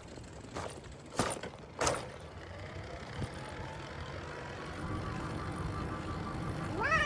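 A bicycle setting off along a street: three sharp clicks in the first two seconds, then a steady rumble that slowly grows louder as it gets under way.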